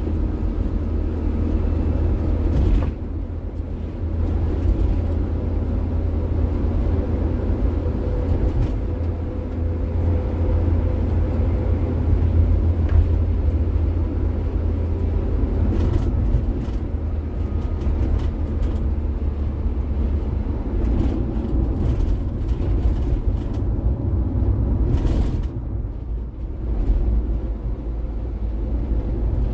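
Engine and road noise of a Daihatsu Gran Max van, heard from inside the cabin while driving: a steady low rumble that drops briefly about three seconds in and again near the end.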